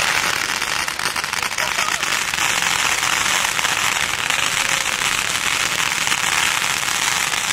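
Fireworks crackling densely and without a break, countless tiny pops running together into one continuous crackle.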